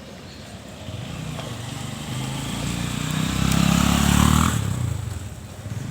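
A motor vehicle's engine passing by: it grows louder from about a second in, is loudest around four seconds in, then fades away.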